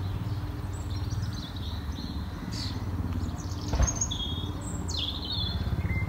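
Several songbirds chirping and trilling, with many short high calls overlapping, over a steady low rumble. A single thump comes a little under four seconds in.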